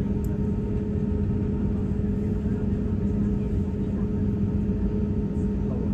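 Steady engine rumble with a constant low hum, unchanging in level or pitch.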